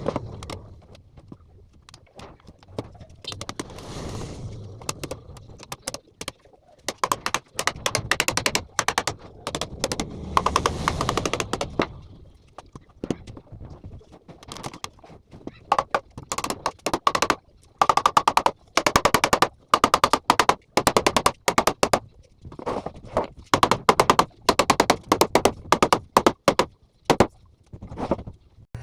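Runs of quick, sharp knocks on wood, several a second, broken by short pauses: hammer blows tapping a wooden panel door into alignment.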